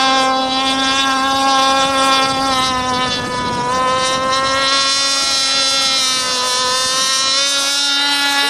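A 42-inch RC sprint catamaran running flat out across open water, its motor giving a loud, steady high-pitched whine that sags slightly in pitch a couple of times.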